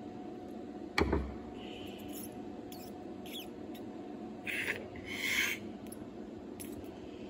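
A single knock as a screwdriver is set down on a wooden surface, then brief rustling and scraping from handling small parts, over a steady background hum.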